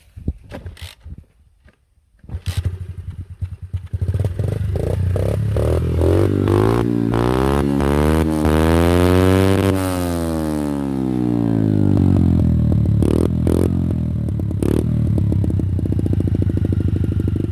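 A small motocross bike engine rattles and catches about two seconds in after a few clattering clicks, then runs steadily and loudly, with a few sharp knocks later on.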